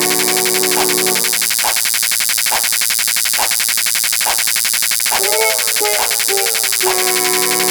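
Synthesized music or sound-effect loop. A steady, high buzzing hiss runs throughout. Sustained tones stop after about a second, leaving a beat roughly once a second and a short wavering melody, and the sustained tones come back near the end.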